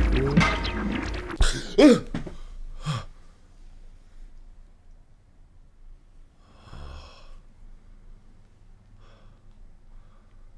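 A man's breathing: a loud, sharp breath about two seconds in, then quiet, with one soft breath out about seven seconds in.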